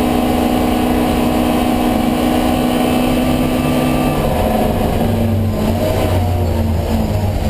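Alfa Romeo Giulia 1600 race car's twin-cam four-cylinder engine under load, heard from on board. It holds high revs with a steady note, then the note drops slightly and deepens about four seconds in.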